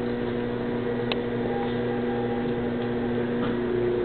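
Electric potter's wheel running with a steady hum while wet clay is centered on it, with one small click about a second in.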